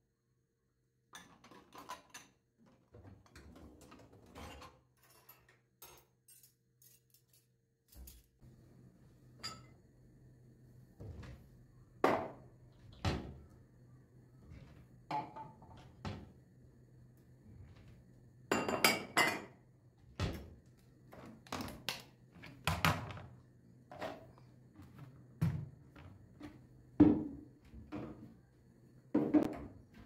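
Clean dishes and kitchenware being handled and put away: glasses, cups and plates clinking and knocking as they are picked up and set down, in a long series of separate sharp knocks, with a brief cluster of clatters about two-thirds of the way through.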